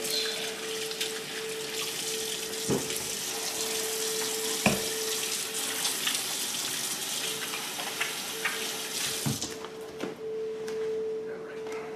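Kitchen faucet running into a stainless steel sink as hands are washed under the stream, with two light knocks along the way. The water is shut off about nine seconds in.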